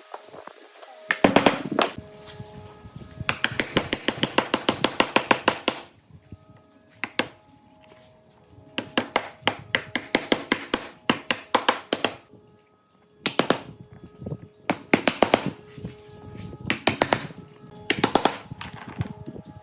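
Rapid tapping on wood, about eight strikes a second, in bursts of two to three seconds with short pauses between them.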